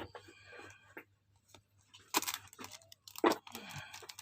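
Packaging being handled and torn open: faint rustling at first, then several short, sharp rips and crinkles in the second half.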